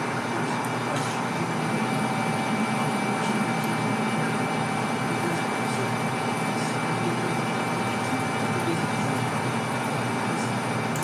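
Metal lathe running with its chuck spinning, a parting tool cutting into the steel rifle barrel at the muzzle end: a steady machine drone with a high whine, and a second, lower whine that comes in about a second and a half in and stops near the end.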